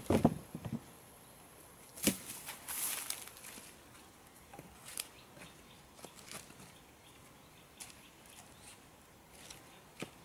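Dead wood being handled on a wood pile: a few dull knocks at the start and a sharp knock about two seconds in, followed by rustling, then scattered light clicks and taps of branches and twigs.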